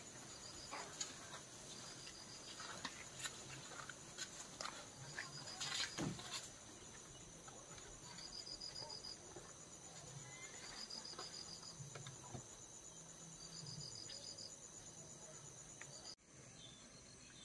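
Crickets chirping at night: a steady, high, continuous trill with shorter bursts of chirps every couple of seconds, faint throughout, with scattered soft clicks and rustles.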